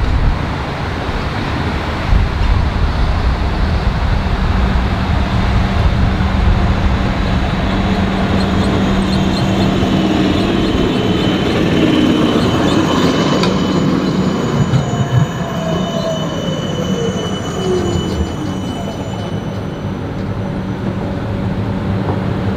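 Siemens Combino low-floor electric tram approaching and passing close by on ballasted track: rolling wheel noise over a steady electric hum. High-pitched wheel squeal comes in the middle, and a whine falls in pitch as it goes by.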